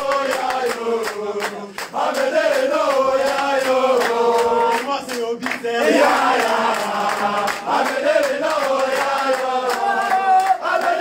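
A group of men chanting and singing together in unison as a victory celebration song, with sharp percussive hits through it.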